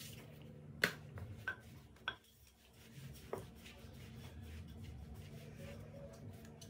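Pita dough being flattened by hand and then rolled out with a wooden rolling pin on a silicone pastry mat: a few light knocks in the first few seconds, then the low, steady sound of the pin rolling back and forth over the dough.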